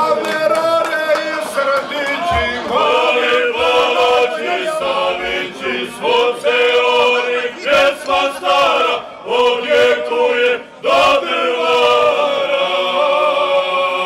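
A group of men singing a Bosnian Krajina folk song together, in long held notes with short breaks between phrases.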